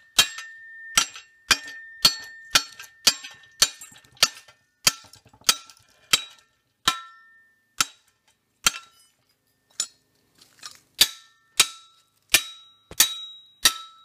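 Hammer blows on a steel motor-mount plate clamped in a bench vise, about two strikes a second, each with a short metallic ring, easing off briefly about nine seconds in before picking up again.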